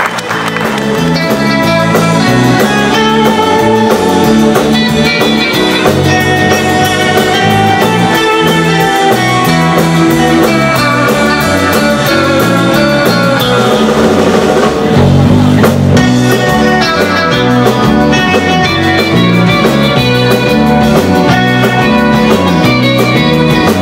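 Live rautalanka band playing an instrumental: electric lead guitar over bass and drum kit, loud and steady.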